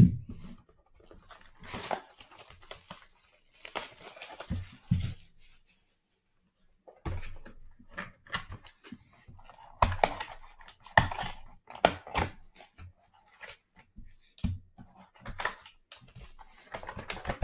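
A sealed box of football trading cards being opened by hand: plastic wrap crinkling and tearing, then cardboard and foil packs clicking and rustling as they are handled. There is a brief pause about six seconds in.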